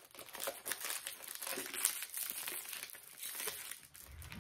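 Packaging crinkling and crackling in irregular bursts as a small package of pumpkin-shaped potpourri is handled and opened.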